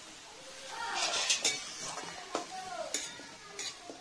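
A long metal spoon stirring and scraping shredded cabbage and potato cubes in a metal pan, starting about a second in, with several sharp clinks of the spoon against the pan.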